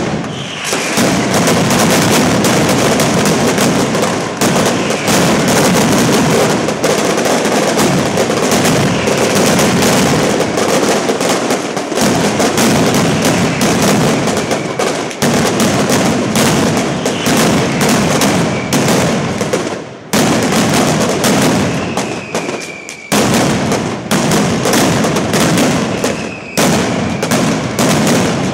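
Mascletà: a dense, continuous barrage of firecracker bangs going off in rapid succession, with a few short whistles falling in pitch cutting through. The barrage thins briefly twice about two-thirds of the way in, then builds again.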